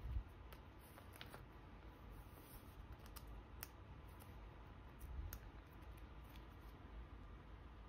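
Faint, scattered soft clicks and rustles of plastic as a sleeved photocard is handled and slid into the clear plastic pocket of a binder page.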